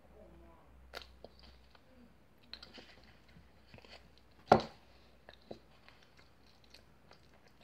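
Mouth sounds of eating a spoonful of butter sauce: small wet clicks and smacks, a short murmur near the start, and one sharp knock about four and a half seconds in.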